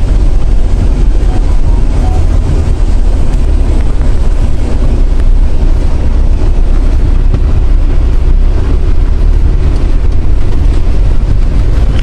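Loud, steady noise inside a moving car's cabin in a heavy downpour: rain on the roof and windshield blended with the car's engine and road noise.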